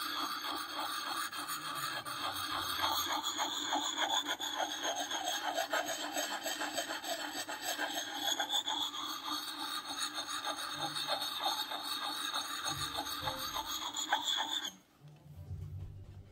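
Smooth fine-grit side of a Lansky sharpening puck scraping along the steel edge of a Marbles hunter's axe in quick, short, repeated strokes, several a second, to hone the edge. The stone-on-steel scraping stops abruptly about fifteen seconds in.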